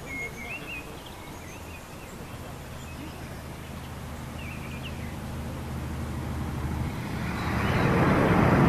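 A road vehicle approaching: a low engine hum grows steadily louder, then tyre and rushing noise swell up and are loudest near the end. A few small bird chirps come in the first second.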